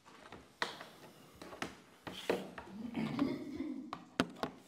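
Microphones and small recorders being handled and moved about on a wooden tabletop: a series of sharp clicks and knocks with dull handling rumble. The sharpest knock comes near the end.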